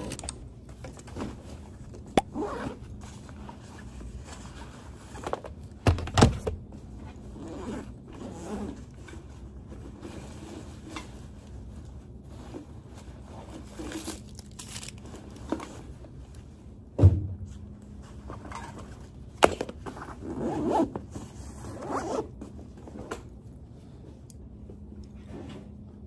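Bag being unpacked onto a desk: a zipper opening, rustling handling, and items set down on the desktop with a few sharp knocks and thuds.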